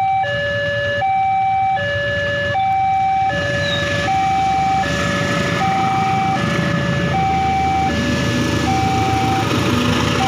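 Electronic two-tone warning alarm of a railway level crossing, sounding a steady high-low ding-dong with each tone lasting about three quarters of a second, signalling an approaching train. From about four seconds in, the rumble of an approaching diesel locomotive and its coaches grows under the alarm, and the train is passing the crossing near the end.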